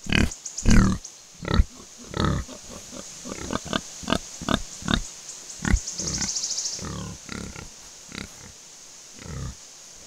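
Wild boar grunting in short, irregular bursts, loudest near the start and quieter later on. A high, fluttering sound comes briefly about six seconds in.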